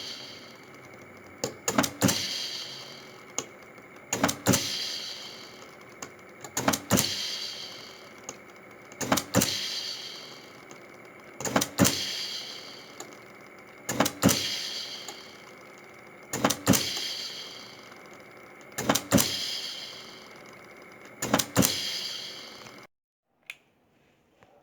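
A low-cost mechanical ventilator prototype cycling. Each cycle is one or two sharp clicks and then a fading hiss, repeating about every two and a half seconds, nine times. It cuts off suddenly near the end.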